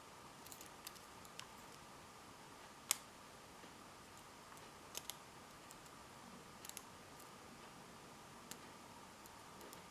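Sparse, faint metallic clicks of a lock pick working the pin tumblers of a vintage Yale & Towne padlock held under a tension wrench, the sharpest click about three seconds in, over a faint steady hum.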